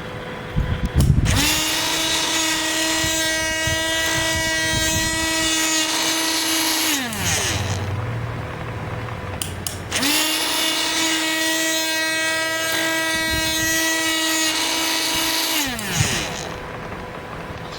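Electric drill run twice, each time for about six seconds at a steady high whine, then winding down in pitch as it is let go. A few knocks come just before the first start.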